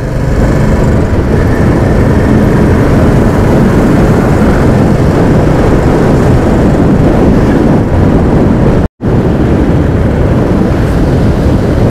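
Royal Enfield Classic 350 under way at road speed: its single-cylinder engine running beneath steady, loud wind rush on the microphone. The sound cuts out for a split second about nine seconds in.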